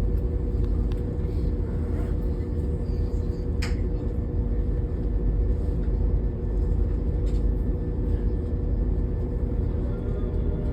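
Train running steadily, a low rumble with a constant hum, with a sharp click a little under four seconds in.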